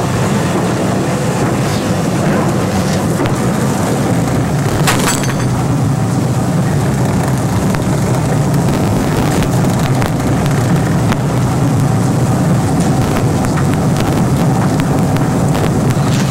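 Film soundtrack heard through room speakers: a steady, loud low rumble, with one sharp crack about five seconds in.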